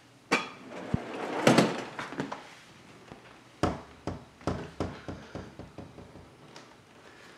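Kitchen cupboard door being shut: a click, a thud and a short clatter, followed by a series of scattered light knocks.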